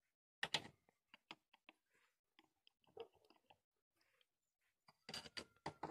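Scattered metallic clicks and clinks of an adjustable wrench being fitted and worked on a moped engine's oil drain bolt, with a cluster of sharp clicks about half a second in and more near the end.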